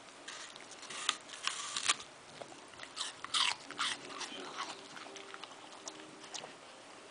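Rat terrier biting and crunching through an apple, chewing in irregular bursts of crisp crunches, the loudest about a second in and again around three to four seconds in.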